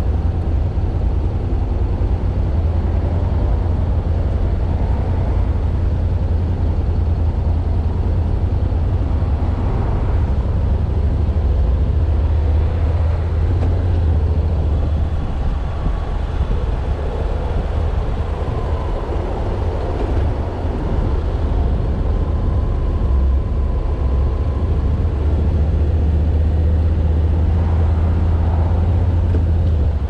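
Motorcycle engine running at a steady highway cruise, a loud, even low hum under road noise.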